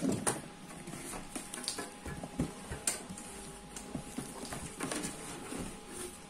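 Cardboard box rustling and scraping, with scattered knocks and taps of a metal equipment case against it, as a Kenwood AG203 audio signal generator is worked out of its box.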